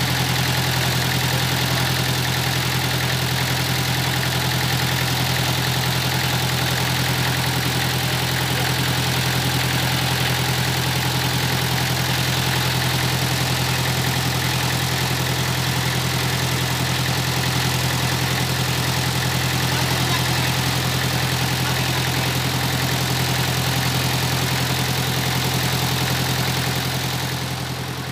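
Open-frame 30 kVA diesel generator set, its Mitsubishi 4D30 inline four-cylinder diesel engine running steadily with a low, even drone. The sound fades out near the end.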